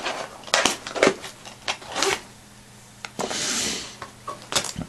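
Handling noise from a fishing waistcoat and its fly boxes: several sharp clicks and rustles, with a brief rasp of fabric or a pocket fastening about three seconds in.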